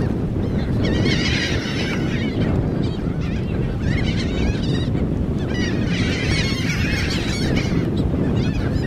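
A flock of seagulls in a feeding frenzy, many squawking over one another in waves over a steady low rumble.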